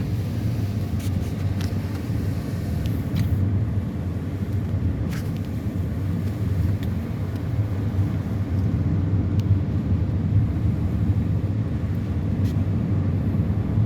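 Road noise inside a moving car: a steady low rumble of tyres and engine, with a few faint clicks scattered through it.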